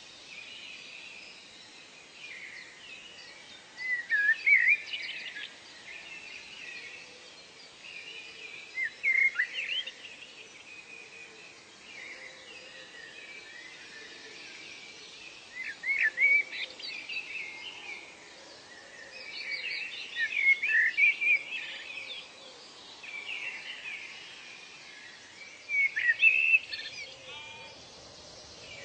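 Birds singing in short bursts of quick rising and falling chirps, five phrases about every five seconds, over a steady hiss of background ambience.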